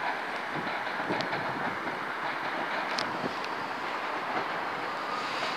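A train running on the line: a steady rumble with a few faint clicks.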